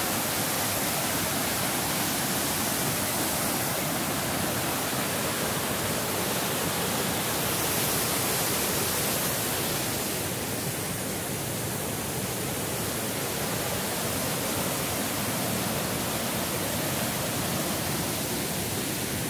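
Tahquamenon Lower Falls: river water pouring over the rock ledges and churning below, a steady, even rushing.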